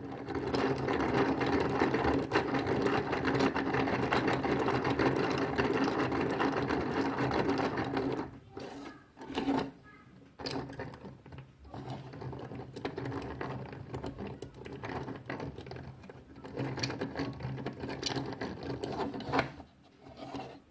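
3D printer running, its stepper motors whirring steadily with several tones at once. About eight seconds in it turns uneven and stop-start, with short gaps between runs of motor noise.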